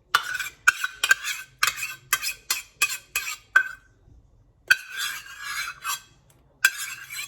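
A spoon scraping repeatedly against a cup or bowl, about nine quick strokes and then two longer scrapes, as yogurt is scooped out of a cup onto raw mutton.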